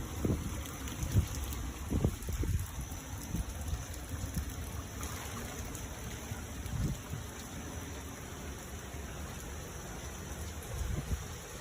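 Hurricane wind and driving rain, with gusts buffeting the microphone in low rumbles that are strongest in the first couple of seconds.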